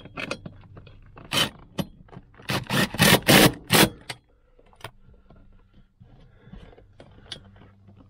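Cordless DeWalt impact driver run in several short bursts over a couple of seconds, tightening a bolt on the pillar bar's floor bracket, then light clinks and rattles of tools and hardware being handled.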